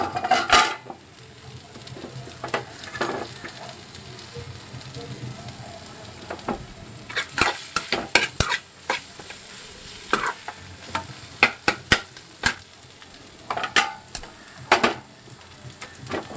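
Steel spatula scraping and knocking against a kadai as potato pieces are stirred into fried onions, in bursts of quick strokes with pauses between them, over a steady soft sizzle of frying.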